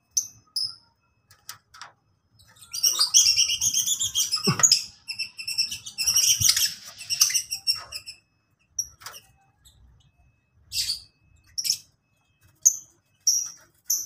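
Lovebirds chirping in an aviary: a few short, sharp chirps, then about five seconds of rapid, overlapping high chirping, then scattered single chirps.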